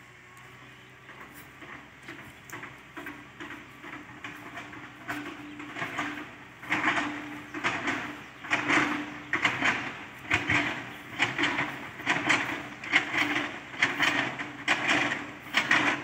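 A cow's rough tongue rasping over another cow's head hair in repeated licking strokes, a little more than one stroke a second, starting faint and growing loud after a few seconds.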